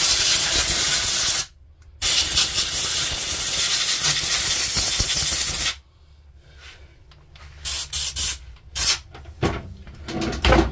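Aerosol spray can hissing in two long bursts, about a second and a half and then about three and a half seconds, followed by several short spurts and a couple of light knocks near the end.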